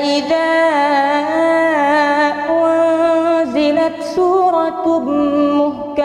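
A young imam's voice reciting the Qur'an in a melodic chant, holding long notes that waver and slide up and down in pitch.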